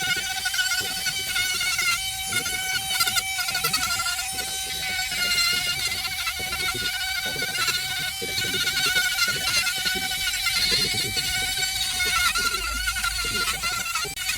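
Small chainsaw running steadily while carving wood, its engine note wavering slightly.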